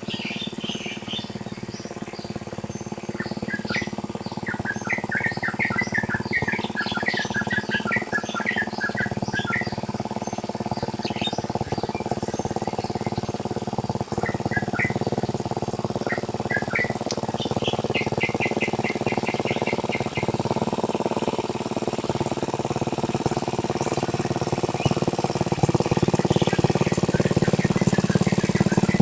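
Tractor engine running steadily as it plows a rice paddy, growing louder near the end. Birds chirp over it through the first two-thirds, including a quick, even run of chirps.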